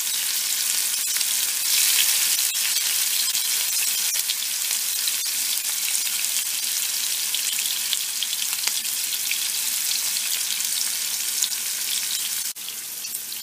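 Bitter gourd rings shallow-frying in hot oil in a pan, sizzling steadily with fine crackles as more rings are laid in. Near the end the sizzle suddenly drops a little quieter.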